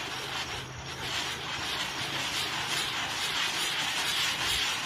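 A hand-held firework fizzing steadily with faint crackling as it burns.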